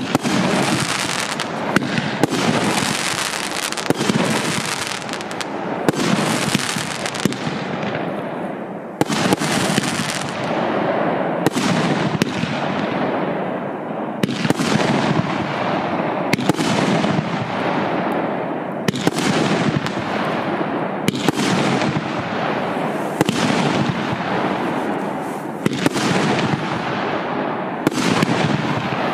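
A 25-shot, 50 mm consumer firework battery (cake) firing in steady succession, about one shot every one to two seconds. Each shot is a sharp bang trailed by a fading hiss of sparks.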